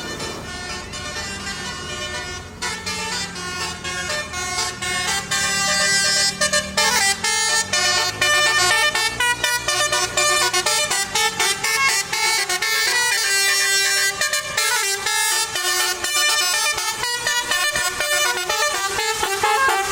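Bus basuri (telolet) musical air horn playing a tune of quick, changing notes, over a low engine rumble that dies away about eight seconds in.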